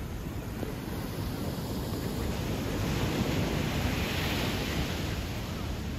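Small sea waves breaking and washing onto a shingle beach, the wash swelling and easing about halfway through, with wind on the microphone.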